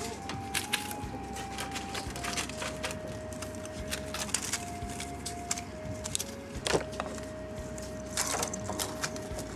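Quick clicks and rustles as a kitten bats and tugs at a small crinkly toy in a wire cage, over a slow, simple melody of plain single notes.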